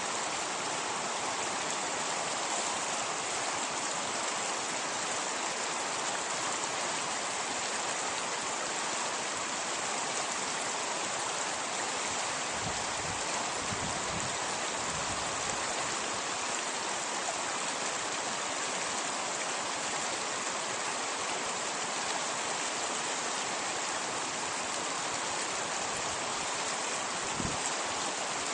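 Small brook rippling and gurgling over rocks and fallen wood, a steady rushing of running water. A few brief low rumbles come in a little before halfway and again near the end.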